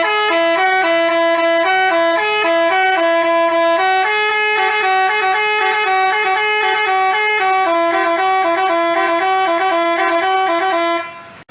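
Basuri telolet multi-tone horn playing a jingle: a quick tune of changing horn notes that cuts off shortly before the end.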